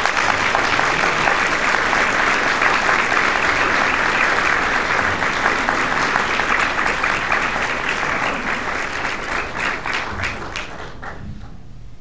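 Audience applauding, thinning to a few scattered claps and dying away near the end.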